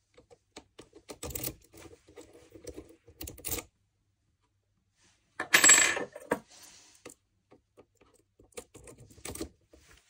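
Small metal clicks and rattles as a key is worked out of a clamped Ultion WXM euro cylinder. A short, loud metallic clatter comes about halfway through, and light clicks near the end as a Lishi 2-in-1 dimple pick goes into the keyway.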